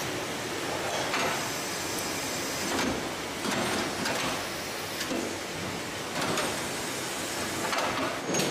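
Automated production-line machinery running: a steady mechanical hiss with repeated louder whooshing swells every second or so as the actuators move.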